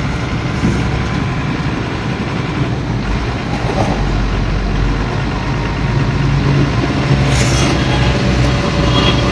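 Heavy diesel engine running steadily, with a short hiss of air about three-quarters of the way through.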